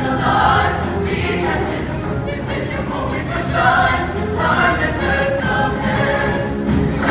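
Show choir singing in full ensemble, backed by a live band.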